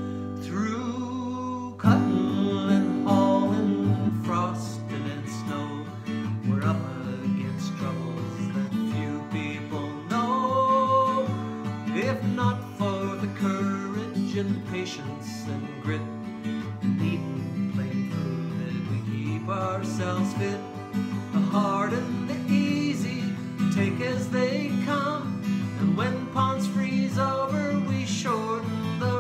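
Acoustic guitar strummed in a steady rhythm while a man sings along, a solo folk-song performance.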